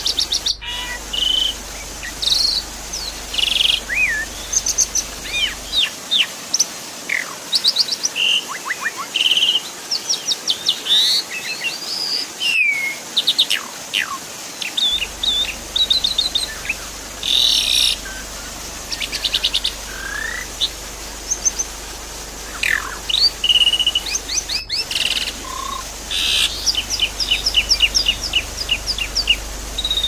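Asian pied starling (jalak suren) singing a fast, varied run of whistles, chirps, gliding notes and rattling trills over a steady high hiss. The song cuts out for an instant three times.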